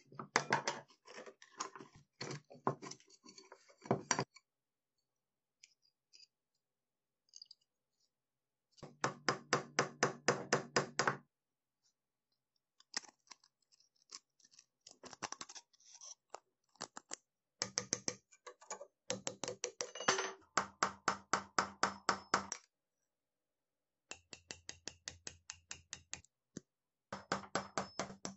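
A rusty old padlock being taken apart by hand: metal scraping and clicking as a screwdriver pries at it and loose rusted lever plates are handled, then several runs of quick, light hammer taps, about four a second, on a steel pin punch driving out the lever rivets.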